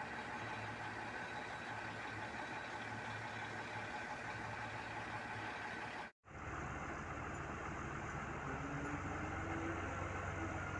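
Heavy diesel engine of a CAT 745 articulated dump truck running steadily. After a cut about six seconds in, a heavy diesel engine keeps running, rising slightly in pitch partway through as the crane lifts a concrete pile off the truck.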